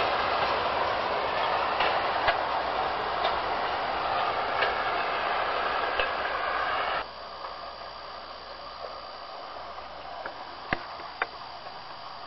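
WM15A motor rail trolley running along the track: a steady engine and wheel noise with scattered sharp clicks. About seven seconds in the sound cuts off abruptly to a much quieter hiss, with a few more sharp clicks near the end.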